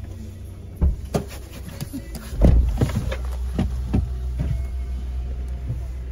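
Steady low rumble inside a car cabin, with a scattering of short knocks and rustles from the phone being handled; the loudest thump comes about two and a half seconds in.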